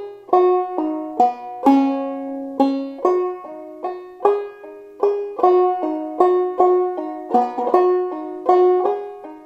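Five-string banjo in an eCGCD tuning played clawhammer style, a slow run through a jig phrase: plucked notes at about two to three a second, each ringing briefly.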